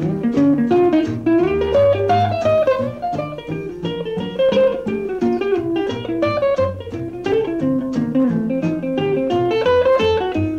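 Instrumental break of a rock-and-roll song: a plucked guitar lead playing quick, bending notes over a steady beat.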